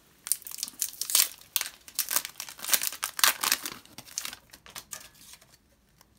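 Pokémon trading card booster pack being torn open by hand, its foil wrapper crinkling and rustling densely for about four seconds before fading away.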